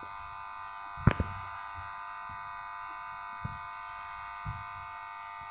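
A steady electrical whine of several high tones, with a sharp double click about a second in and two faint soft knocks later, as the glass Soxhlet extractor is handled and the paper sample thimble is set into its chamber.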